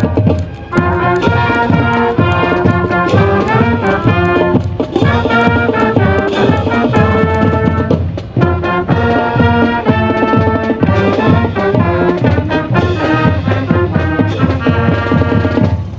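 Marching band playing, the brass section carrying the tune in phrases with brief breaks between them.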